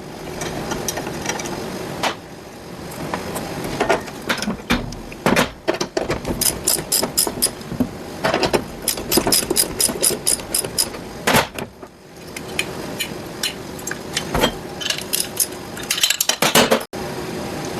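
Hand ratchet clicking in quick runs as bolts are backed out of the shifter bracket on a Super T10 four-speed transmission, mixed with separate knocks and clinks of metal tools and parts.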